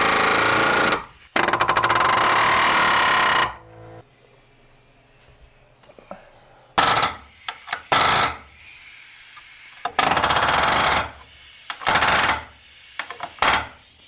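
Pneumatic palm nailer driving nails into wooden framing in bursts of rapid hammering blows, each burst up to about two seconds long. There is a quieter gap from about four to nearly seven seconds in.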